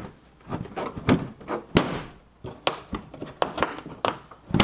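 Plastic lid of a rooftop cargo box being pressed down over a packed load to close it: several irregular thunks and clicks as the lid and latch are pushed.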